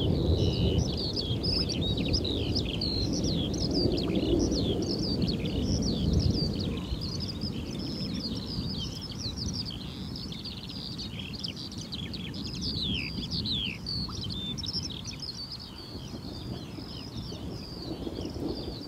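A dense chorus of birds chirping and twittering in quick falling notes, over a low rumbling background noise that is strongest in the first few seconds and then eases.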